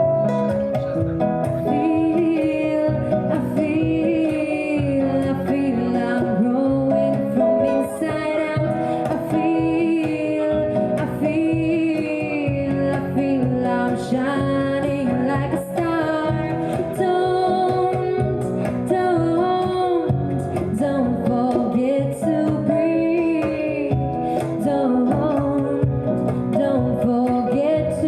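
A pop song played by a band, led by guitar with a female voice carrying the melody.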